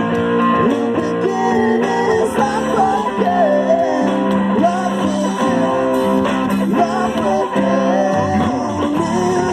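Rock band playing with electric guitar and a singing voice, in a rough-sounding recording.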